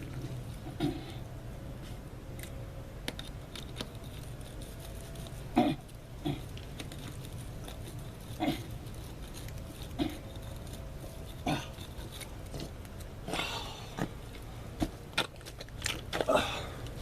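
Scattered short knocks and clicks, about a dozen at uneven intervals, over a steady low hum.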